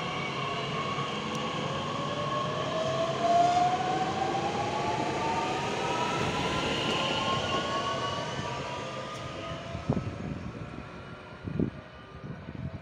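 DB class 442 (Bombardier Talent 2) electric multiple unit pulling away, its traction motors whining in several tones that rise slowly in pitch as it gathers speed, then fading as it draws off. A few short knocks near the end.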